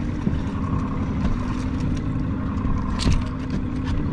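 Boat motor running at a steady, even pitch, with a brief knock about three seconds in.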